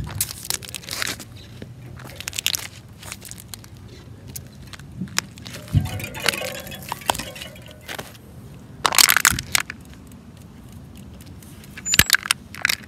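Bicycle tyre rolling over small brittle objects on asphalt and crushing them: about five crunching, crackling bursts, the loudest about nine seconds in and about twelve seconds in.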